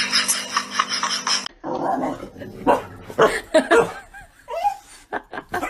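A dog yipping and whimpering in short, rising and falling cries, starting about a second and a half in. Before that, a rapid ticking over a steady hum cuts off abruptly.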